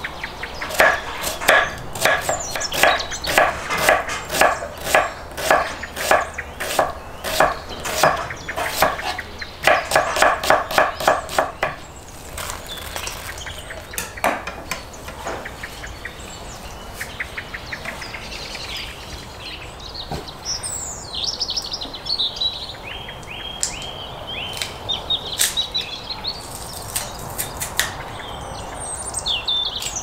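Kitchen knife chopping an onion on a wooden cutting board, an even run of knocks at about two to three a second for the first twelve seconds, then a few scattered taps. Birds chirp in the second half.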